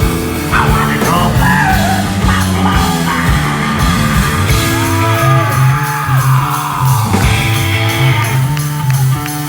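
Live rock band playing loudly through a venue PA: electric guitars, bass and drums, with a sung vocal line over the first couple of seconds.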